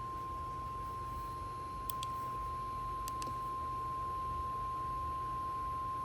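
NOAA Weather Radio 1050 Hz warning alarm tone: one steady, unbroken pure tone, the signal that a warning message is about to be read.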